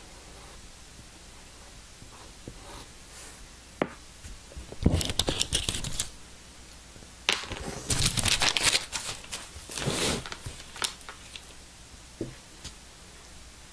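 Tracing paper being handled and lifted off a wooden board, rustling and crinkling in several bursts, after a single sharp tap.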